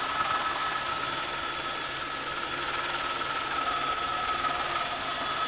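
Helicopter in flight heard from inside the cabin: a steady drone of engine and rotors with a steady high whine over it.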